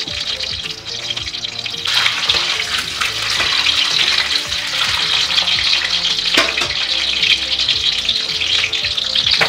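Peeled hard-boiled eggs sizzling in hot mustard oil in a kadhai. The sizzle grows louder about two seconds in. A metal spatula stirs and turns the eggs, with a sharp knock a little past six seconds.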